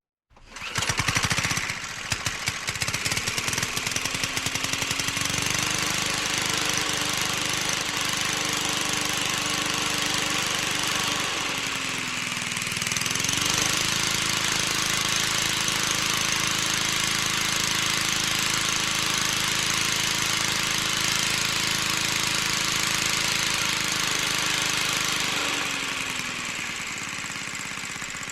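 Indian auto rickshaw engine starting about a second in, then running. Its pitch climbs and holds, dips briefly about halfway through, climbs again, and falls off near the end.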